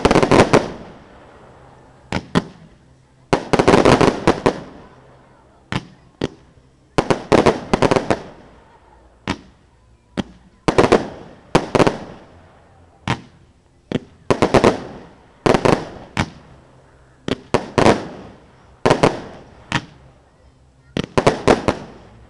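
Fireworks display: aerial shells bursting in quick groups of two or three sharp bangs, a new group every second or two, each followed by a rumbling, crackling tail.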